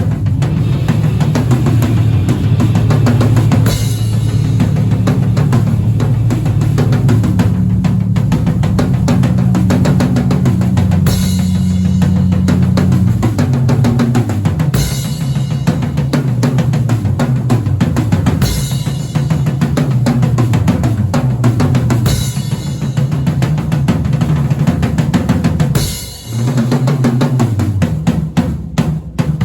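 Band playing loud at a sound check: a drum kit with bass drum, snare and cymbal crashes every few seconds, over deep held bass notes. The playing drops out briefly about three-quarters of the way through, then comes back in sparser hits near the end.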